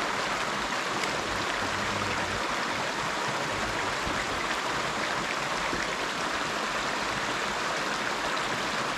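Mountain stream running over rocks and a small waterfall spilling into a pool: a steady, even rush of water.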